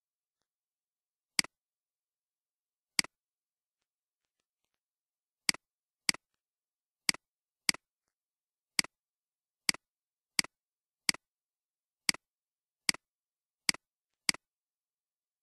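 Computer mouse button clicking: about fourteen single clicks at irregular gaps of half a second to two and a half seconds, each a quick press-and-release double tick.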